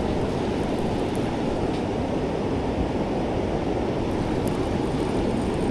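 Steady noise of wind on the microphone mixed with breaking surf.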